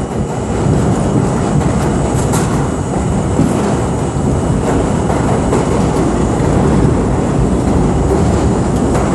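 R32 subway car running through a tunnel: a steady, loud rumble of wheels on the rails, with a few sharp clicks.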